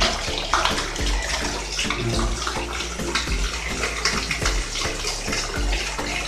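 Water from a Shimizu PS135E electric pump gushes out of a plastic tap in a strong stream and splashes into a basin that is partly full of water. The steady flow is the sign that the pump has primed and is drawing water up from the bored well now that a leaking joint is sealed.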